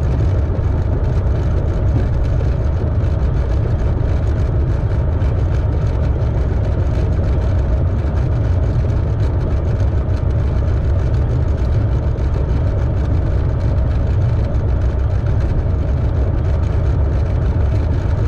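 Single-engine light propeller aircraft's engine and propeller running steadily at low taxi power, heard from inside the cockpit as a deep, even drone.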